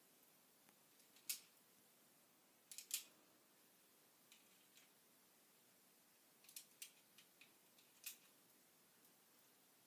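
Small sharp clicks from a pellet gun being handled and loaded: one about a second in, a quick double click near three seconds, a cluster of lighter clicks around six and a half to seven and a half seconds, and another near eight seconds, with faint hiss between.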